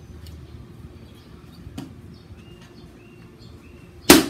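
An axe is swung down once near the end to split a piece of firewood on a tree-stump chopping block, making a single sharp knock of steel into wood. Before it, faint bird chirps are heard against a low steady background.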